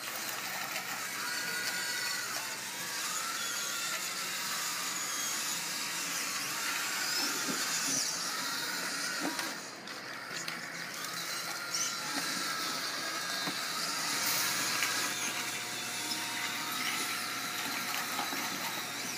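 Small electric drive motors and plastic gearboxes of radio-controlled Bruder toy machines whining as they work, the pitch repeatedly rising and falling as the motors speed up and slow down.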